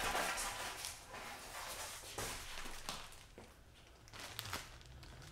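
Plastic wrapping rustling and light knocks as wrapped fishing rods are lifted and handled, loudest in the first second and then fading to a few soft clicks.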